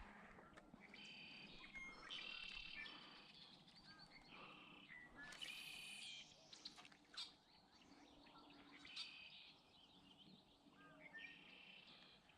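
Faint birdsong: a songbird repeating short, buzzy song phrases every couple of seconds over a quiet outdoor background.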